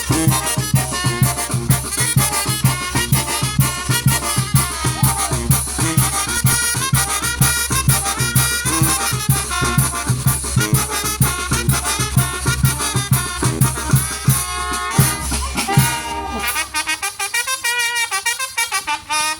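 A Mexican brass band (banda) playing fast carnival music, with trumpets and other brass over a steady, driving drum beat. Near the end the drums and bass drop out for a few seconds, leaving the brass playing alone.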